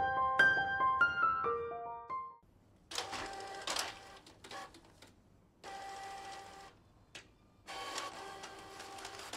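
A few decaying piano notes end about two seconds in. Then an Epson L4260 EcoTank inkjet printer runs in bursts with short pauses, its paper-feed and print-head mechanism whirring as a page is printed and fed out into the output tray.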